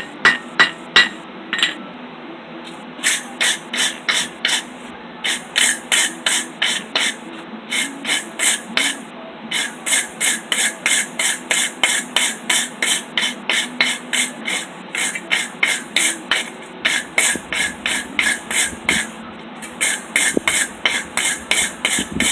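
A few hammer blows on hot steel, then a wire brush scrubbed back and forth over the hot iron roasting stick in fast rasping strokes, about three a second, in runs with short pauses. The brushing knocks off forge scale and smooths the surface.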